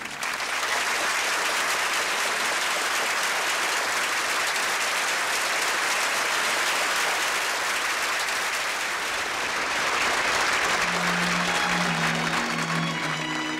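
Audience applauding steadily after a song-and-dance number; near the end, soft orchestral music begins underneath.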